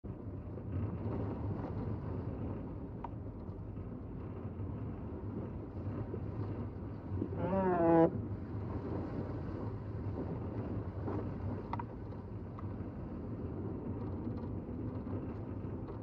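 Steady low rumble of a vehicle driving slowly on a snow-covered road. About halfway through, a short wavering pitched sound swells to the loudest point and cuts off abruptly.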